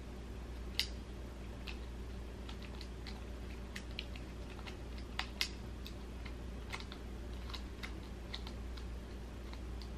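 Irregular small clicks and ticks of a fork picking at a piece of shellfish shell to get the meat out. The sharpest click comes about a second in, with two more close together just past five seconds, over a steady low room hum.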